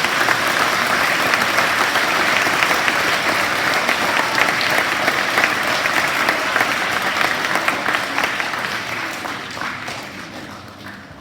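An audience of schoolchildren clapping: sustained applause that fades out over the last couple of seconds.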